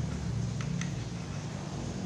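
A steady low hum with a few faint light clicks between half a second and a second in, from a plastic toy knife tapping and sawing on a plastic toy bread roll.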